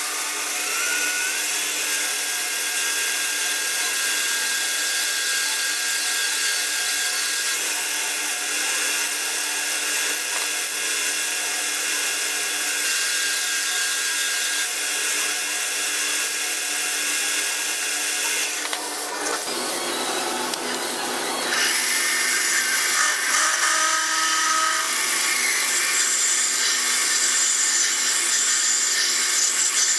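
Small metal lathe running while a twist drill in the tailstock chuck drills into a spinning brass bar, boring out a steam-engine cylinder. The sound changes about two-thirds of the way through, when a larger drill bit is cutting.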